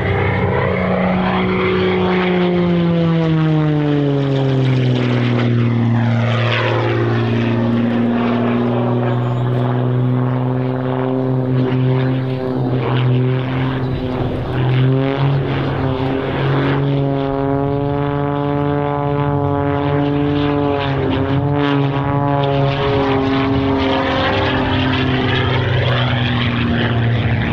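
Single-engine aerobatic propeller plane, Rob Holland's MXS-RH, running loud as it flies the display. Its engine note drops in pitch about three seconds in as it passes, then holds fairly steady, wavering slightly as it manoeuvres.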